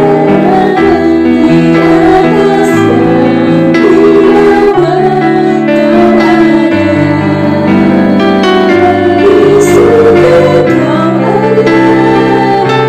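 A worship song playing: singing over instrumental accompaniment with steady chord changes.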